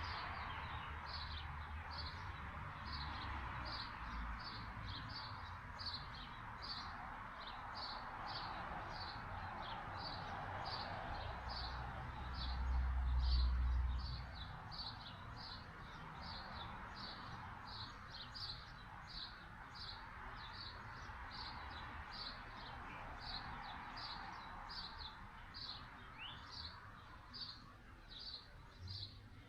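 A bird chirping one short high note over and over, about one and a half times a second, over a steady wash of outdoor background noise. About halfway through, a low rumble of wind on the microphone swells briefly and is the loudest thing heard.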